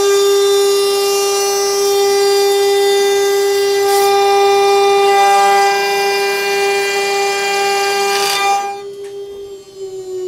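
CNC router spindle whining at a steady high pitch while its bit cuts through wood, with a sharp knock about four seconds in and another about eight. Near the end the cutting noise drops away and the whine slowly falls in pitch as the spindle winds down.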